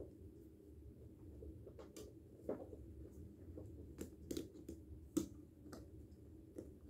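Faint scattered clicks and light knocks, about a dozen spread irregularly, over a low steady hum; the loudest knock comes a little after five seconds in.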